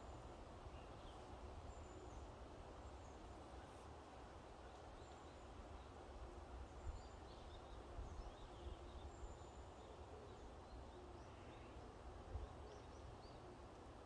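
Faint, distant birds giving short chirps and calls scattered through, over a low, steady rumble of wind.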